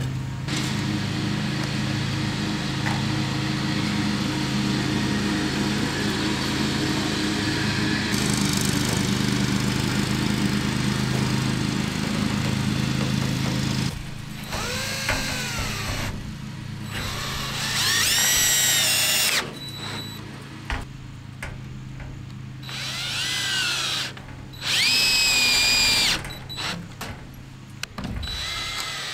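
DeWalt cordless drill driving screws through 1x2 wood strips into a wall stud, in three short bursts in the second half; the motor's whine rises in pitch as it spins up on each screw. A steady hum fills the first half.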